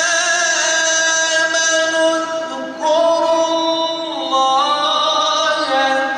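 A male reciter chanting the Quran in the slow, melodic tilawah style, holding long, ornamented notes. A new phrase begins about three seconds in and climbs higher about a second later.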